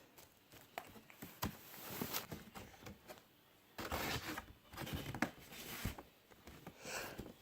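Cardboard and paper record packaging being handled: intermittent rustling and sliding, with a few small sharp taps and clicks.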